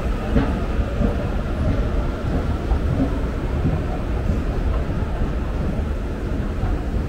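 Train running past, a steady loud low rumble.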